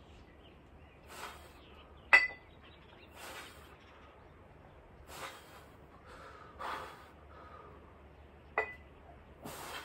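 Forceful exhaled breaths, one every one to two seconds, as dumbbell lateral raises are pushed toward failure. Two sharp metallic clinks of iron plates on the plate-loaded dumbbells ring out, the louder about two seconds in and another near the end.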